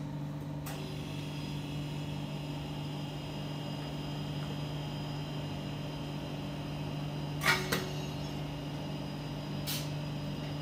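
Steady hum of kitchen machinery. About seven and a half seconds in, a sharp metallic clack as the wire frame of a chocolate guitar cutter comes down through a slab of ganache, followed by a lighter click near the end.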